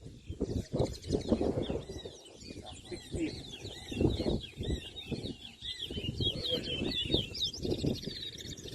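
Towa-towa (large-billed seed finch) singing: a fast run of short whistled notes that slide up and down. The song grows denser from about two seconds in.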